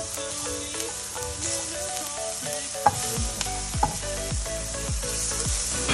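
Onions frying on a hot cooking surface, a steady sizzle. Background music with a melody runs under it, and a bass-drum beat comes in about three seconds in, roughly two beats a second.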